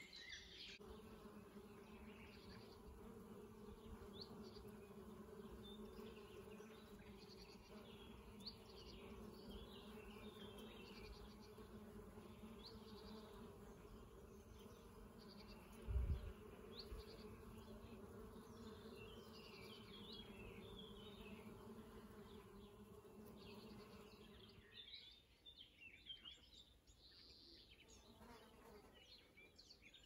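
Faint steady buzzing of bees foraging at blossoms, with small birds chirping throughout. There is a brief low thump about halfway. The buzzing stops about three-quarters of the way in, leaving only the bird chirps.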